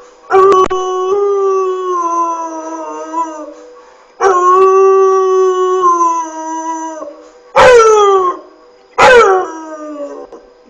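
Dog howling: two long, drawn-out howls of about three seconds each, then two short howls that fall in pitch, with another starting at the very end.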